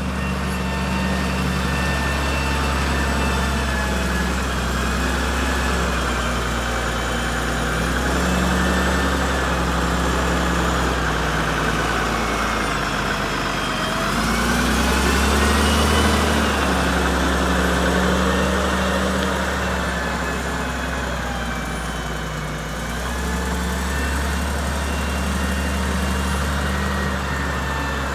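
Volvo L90B wheel loader's diesel engine running steadily, with a thin high whine over it; about halfway through, the pitch and loudness rise briefly, then settle back.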